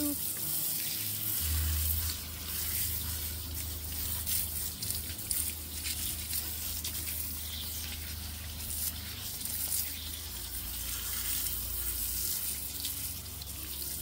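Water spraying from a garden-hose nozzle onto a wet puppy's coat and splashing on concrete, a steady hiss with a low hum underneath.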